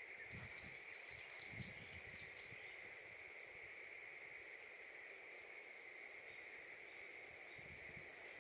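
Faint outdoor ambience: a steady high-pitched insect drone, with a few short bird chirps in the first couple of seconds and scattered soft low bumps.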